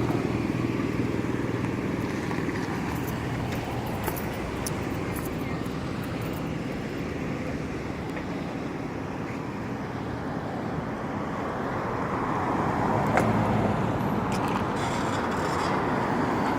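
Road traffic: steady noise of cars passing on the street, with one vehicle growing louder and going by about three-quarters of the way through.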